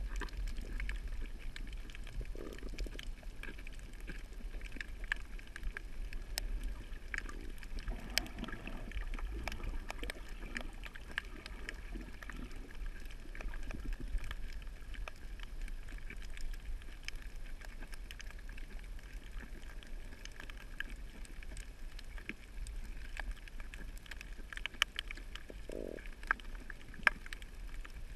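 Underwater sound over a coral reef: a steady, muffled low rumble of moving water, with faint scattered clicks throughout and a few sharper clicks near the end.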